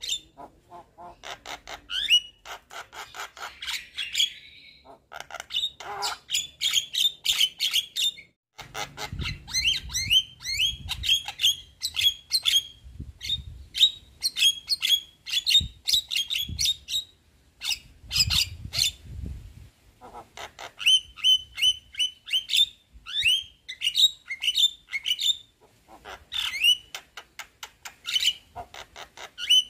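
Javan myna (jalak kebo) chattering in bursts: fast runs of harsh clicks mixed with short downward-sliding whistled notes, broken by brief pauses. A low rumble sits under the calls for several seconds in the middle.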